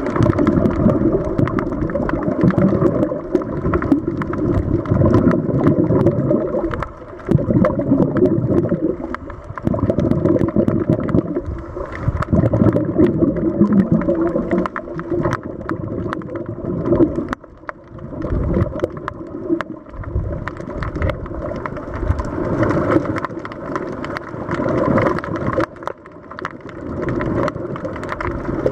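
Scuba regulator exhaust bubbles burbling and rumbling close to an underwater camera, in long bursts with short pauses every few seconds between breaths.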